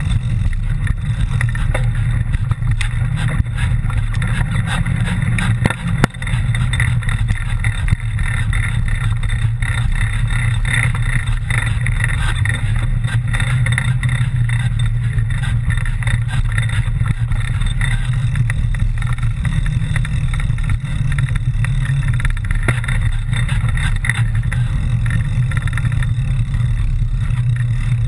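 Mountain bike riding down a rough trail: a steady, loud rumble of wind and tyre noise with scattered knocks and rattles.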